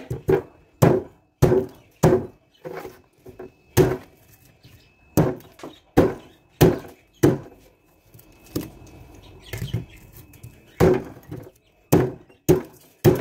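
A heavy cleaver chopping through meat and bone onto a thick wooden block, a sharp chop about every half second. The chopping pauses for about three seconds in the middle, with softer handling sounds, then goes on.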